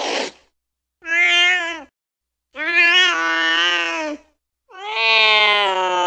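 Cat meowing: three separate drawn-out meows with dead silence between them. The last meow is long and still going at the end. A brief breathy noise fades out right at the start.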